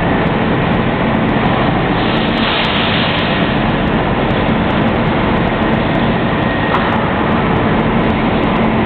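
Electric arc welding: a loud, steady crackling hiss over a low hum.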